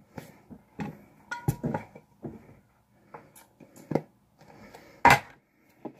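A can of dip tobacco being handled and opened: a string of small taps, clicks and scrapes on its lid, with one sharper knock about five seconds in.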